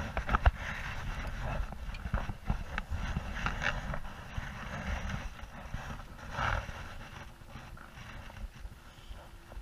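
Handling noise from fishing gear on a plastic kayak: scattered knocks, clicks and rustles over an uneven low rumble on the camera microphone, with a sharp knock about half a second in.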